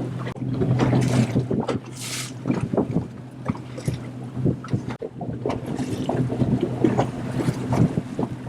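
A boat's motor running with a steady low hum that fades in the middle and comes back, with water slapping against the hull and wind on the microphone.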